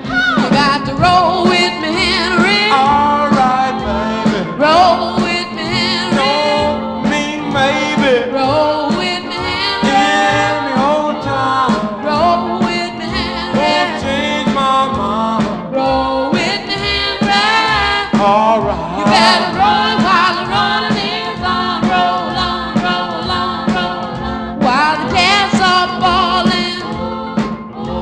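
Oldies song playing: singing over a band, with a note held low underneath throughout.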